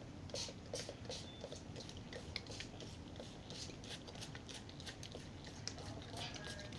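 Faint, irregular soft clicks and sticky smacks of a glue mixture being stirred in a mixing bowl, a few small ticks a second.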